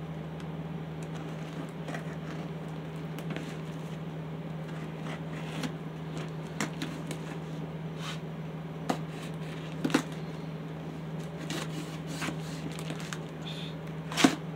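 Utility knife slicing through packing tape along the seam of a cardboard box: scattered scratching and crackling of blade and tape on cardboard, with a few sharper clicks, the loudest near the end.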